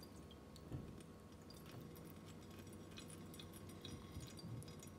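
Faint trickling and dripping of marinade poured from a steel bowl into a stainless steel sink drain, with small soft squelches from the raw chicken drumsticks held back by hand.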